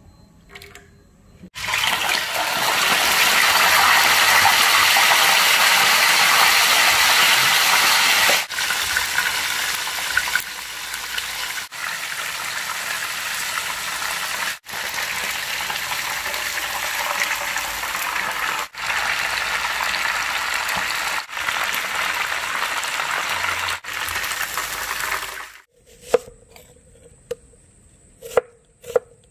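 Whole grouper frying in hot oil: a loud, steady sizzle that starts suddenly about a second and a half in, with a few abrupt short breaks. Near the end, a knife slicing an onion on a wooden chopping board, several sharp knocks.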